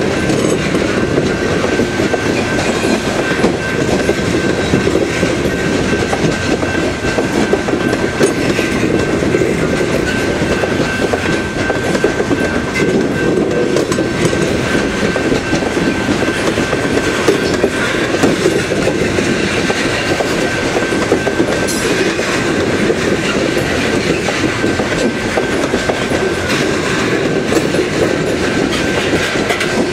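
Loaded coal cars of a BNSF freight train rolling past: a steady rumble with the clickety-clack of wheels over rail joints, and a thin steady high tone over it.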